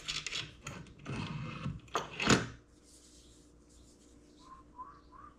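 Knocks and clatter of tools and parts being handled in the first two and a half seconds, the loudest about two seconds in, then quiet with three faint short chirps near the end.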